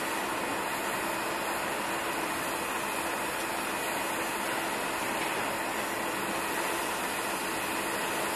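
Steady hiss and hum of machinery, with a few faint steady tones running through it and no sudden knocks or changes.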